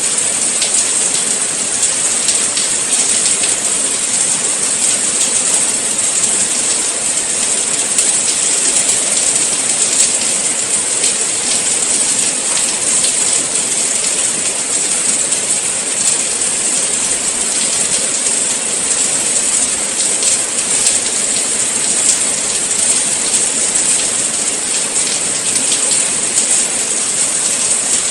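Steady rain: a dense, even hiss of falling rain with fine scattered drop ticks, unchanging throughout.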